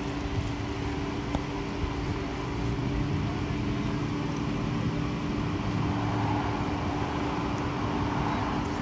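Road traffic: cars passing on a street, a steady rumble that grows a little louder about three seconds in, with a constant hum underneath.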